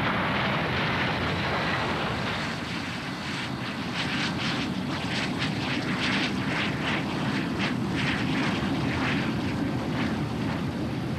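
Jet airliner engines running at high power: a steady, loud noise. From about three seconds in it takes on a rough, irregular crackle.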